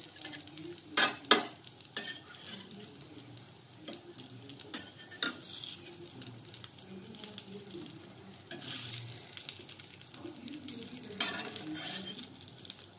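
Metal spatula scraping and clinking on a flat tawa griddle while papad sandwiches fry gently in ghee with a faint sizzle. The loudest sounds are two sharp clinks about a second in, with scattered scrapes after.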